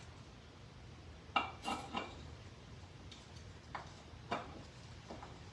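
Small metal parts clinking and clicking as they are handled: three sharp clinks close together in the first half, then two more and a faint last one. The parts are the fittings of a spin-on oil filter adapter being fitted to the tractor's filter housing.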